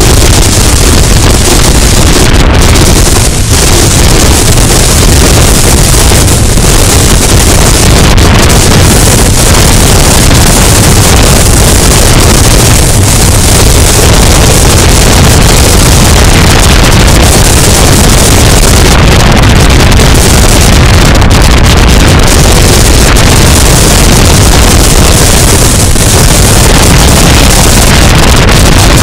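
Loud, steady wind rush and buffeting on the microphone of an action camera mounted at the front of a moving Isuzu pickup truck, with deep rumble from the truck's travel at road speed.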